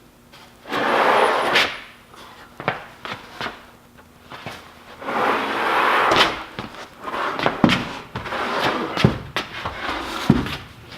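Knocks and clunks of wood being handled, with two longer scraping sounds, each lasting a second or more: one about a second in and one near the middle.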